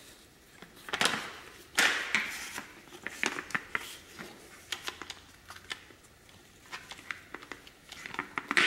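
Hard plastic clicks, knocks and scraping as a grinding dust shroud is pushed onto an angle grinder and its clamp lever is worked. Two louder knocks come about a second and two seconds in, the second followed by a brief scrape, then scattered small clicks that grow denser near the end.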